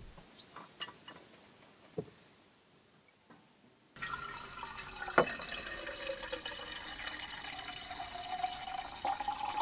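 Liquid running from a stainless-steel dispenser's tap into a metal tumbler. It starts suddenly about four seconds in, and a ringing tone rises in pitch as the tumbler fills. A few light clicks come before the flow, and a sharp knock follows about a second after it starts.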